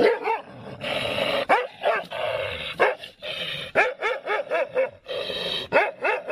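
Dogs barking and snarling in short, repeated, yelping barks with rough growling between them, a quick run of barks about four seconds in; they are challenging a dog they see in a mirror.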